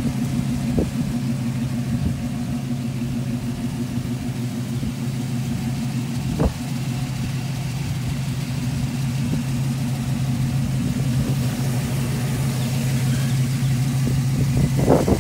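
GM ZZ4 small-block V8 in a 1937 Ford coupe idling steadily, with a light knock about six seconds in.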